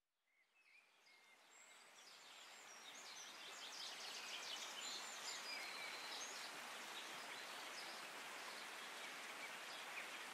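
Faint rushing of a forest stream running over small rocky cascades, fading in over the first few seconds and then steady, with birds chirping and trilling above the water noise.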